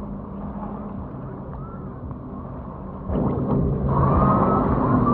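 Watercraft engine running with a steady hum, turning much louder about three seconds in, with a higher whine joining a second later.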